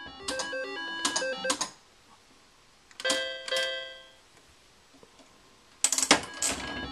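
Three-reel slot machine spinning: a plinking electronic tune with a few clicks, then a two-note chime about three seconds in. After a short quiet spell there is a clunk near the end, and the spin tune starts again.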